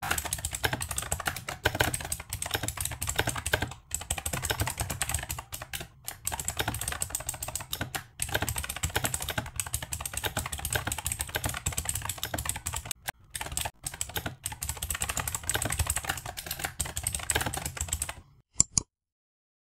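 Rapid typing on a computer keyboard: a dense run of keystrokes with brief pauses between phrases. The typing stops a little before the end, after two last taps.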